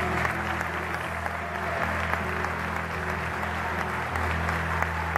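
Audience applauding at the end of the song, with low guitar notes still sounding underneath.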